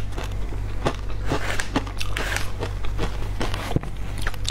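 Close-miked crunching and chewing of frozen ice dusted with matcha powder: a quick, irregular run of sharp crackly crunches, several a second, over a steady low hum.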